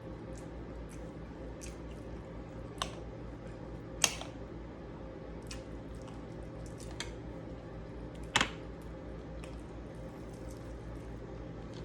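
Close-miked eating: chewing and mouth sounds with many small scattered clicks, and three louder sharp clicks about three, four and eight seconds in, over a steady low hum.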